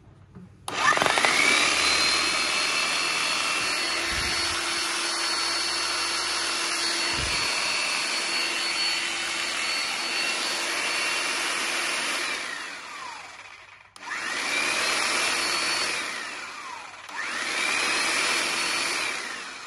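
Hilti TE 905-AVR electric demolition hammer switched on with no bit fitted. Its motor whines up, runs steadily for about twelve seconds and winds down, then is triggered twice more in short bursts of about two seconds, each spinning down with a falling whine.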